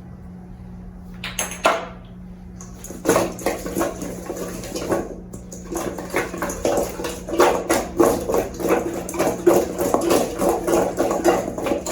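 Kitchen handling noise: a dense run of irregular clattering and scraping from a kitchen container or bowl being handled while chicken is seasoned, starting after a few clicks near the beginning, over a steady low hum.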